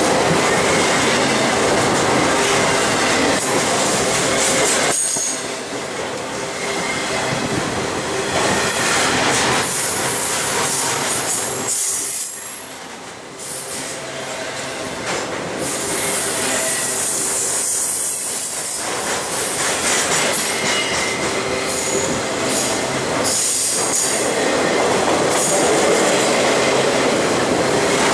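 BNSF double-stack intermodal train rolling past close by: a steady rumble and rattle of wheels on rail, with thin high-pitched wheel squeal coming and going. The sound drops briefly about halfway through.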